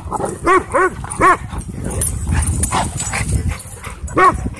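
Dogs barking during rough play: three quick barks in the first second and a half, then one more near the end.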